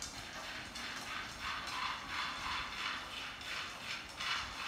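Utensil stirring and scraping food in a hot frying pan on a gas stove, with a sizzling hiss that swells with each stroke, about two or three strokes a second.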